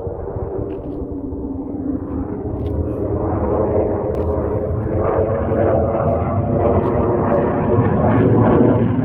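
F-35 fighter jet's single turbofan engine, a dense roar that grows steadily louder.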